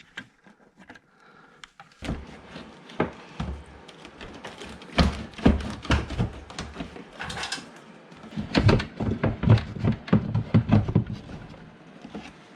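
Clicks, knocks and rattles of the door handle assembly being worked loose from inside a Mercedes S63 car door, starting about two seconds in and coming thick and fast, with two busier spells.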